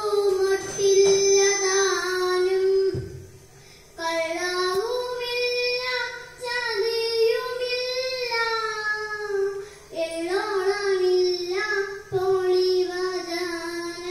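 A young girl singing a kathaprasangam song into a microphone, in long held sung phrases with short breaks between them.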